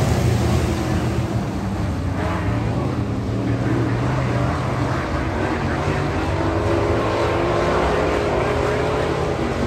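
A pack of Pro-Truck dirt-track race trucks running together around the oval, their engines heard from the grandstand as a steady, loud mix of several engine notes that wavers slightly as the trucks go through the turns.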